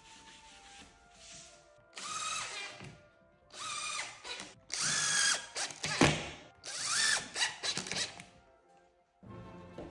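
Festool cordless drill-driver driving screws through a small bracket into a laminate worktop, in four short runs, the motor's pitch rising as each run starts. A sharp click about six seconds in is the loudest moment.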